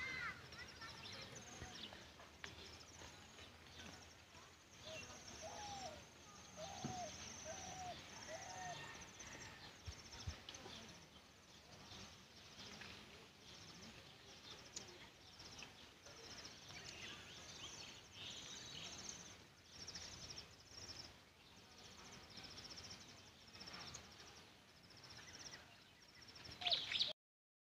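Faint rural outdoor ambience with birds chirping now and then, and a run of four short repeated calls about six to nine seconds in. Near the end a brief louder sound is followed by a sudden drop to silence.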